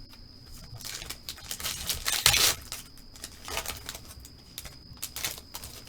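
A foil trading card pack wrapper being torn open and crinkled, with the cards slid out and handled: a string of irregular rustles and scrapes, loudest a little over two seconds in.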